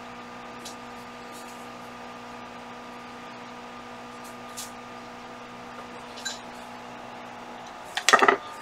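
A steady electrical hum made of several steady tones, with a few faint clicks. Near the end comes a short clatter of clicks, the loudest sound.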